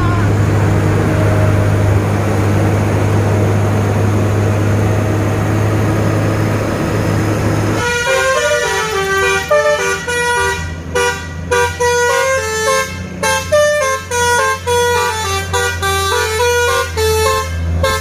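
A heavy truck's diesel engine runs with a steady low drone. About eight seconds in, a Basuri telolet multi-tone horn starts playing a quick dangdut-style melody of stepping notes over the engine.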